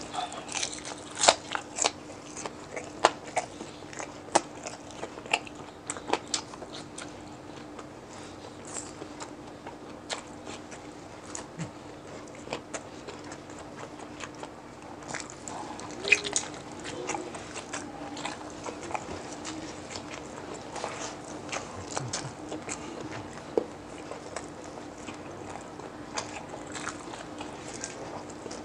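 Close-up mouth sounds of crisp deep-fried chicharon bulaklak being bitten and chewed: loud sharp crunches come thick in the first several seconds and again about halfway through, with quieter chewing between. A steady low hum runs underneath.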